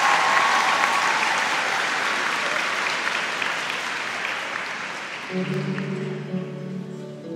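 Audience applauding, the applause fading away over about five seconds; then the skater's programme music starts with steady pitched notes.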